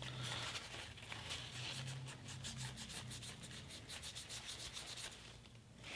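Faint, rapid scrubbing and rubbing as an Apple Watch is cleaned, working dirt out of its grooves; it stops about five seconds in.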